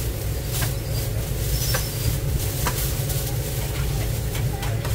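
Steady low mechanical hum of kitchen machinery, with a few light clicks and crinkles from a plastic bag and chopped cold-cut pieces being handled on a stainless-steel counter.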